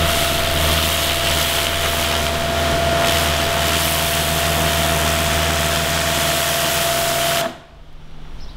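Pressure washer running steadily, its motor humming with a steady whine under the hiss of the water jet, then cutting off abruptly near the end.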